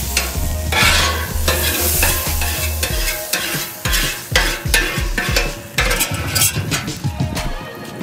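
Water sizzling and steaming on a hot Blackstone griddle's steel cooktop while a metal scraper is pushed across it in repeated scraping strokes. The boiling water is loosening stuck-on food residue so that it can be scraped off.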